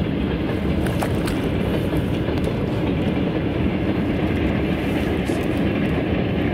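Steady low rumbling noise, with a couple of faint splashes or knocks about a second in as a crucian carp thrashes at the surface and is scooped into a landing net.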